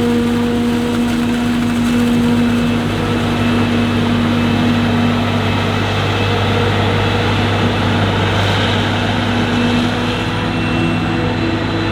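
Heavy diesel engines of maize-harvesting machinery running steadily, a low drone with steady engine tones over it.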